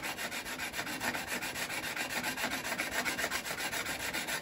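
Steel card scraper, held edge-down in a wooden block, rubbed back and forth on a diamond sharpening stone in quick, even strokes, several a second: a steady metal-on-diamond scraping as the scraper's edge is flattened and material is rapidly removed.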